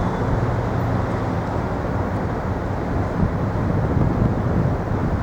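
Steady low rumble of city street traffic, with a faint engine hum underneath.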